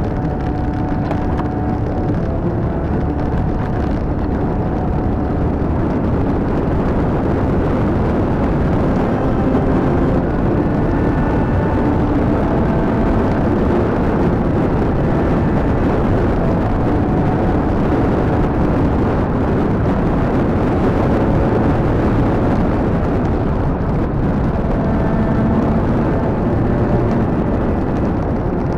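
A vehicle driving along a road: steady engine and road rumble, with the engine's pitch shifting now and then.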